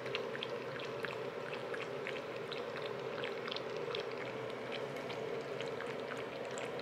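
Yorkshire terrier puppy lapping water from a stainless steel bowl: quick, irregular wet laps, a few to the second.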